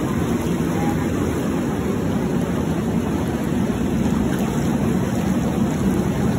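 Spa pool jets churning the water: a steady, low rushing of bubbling water.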